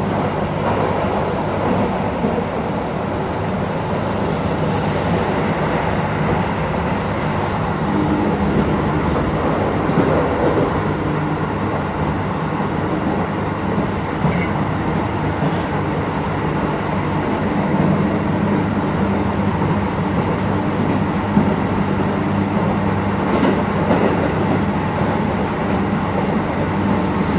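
Interior running sound of a Keisei 3050-series commuter electric train car moving along the line: a steady rumble of wheels on rail with a low hum, and a few sharp clicks from the track.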